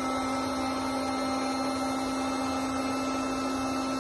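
Corded electric air pump running at a steady pitch, blowing air through an adapter into an air bed's valve to inflate it.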